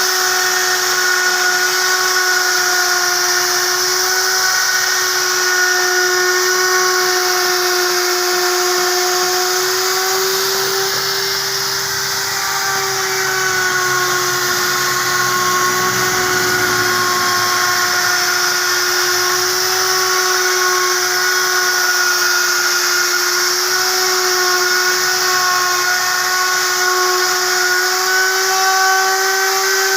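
Woodworking router motor running continuously at high speed, a steady whine whose pitch wavers slightly, over a hiss.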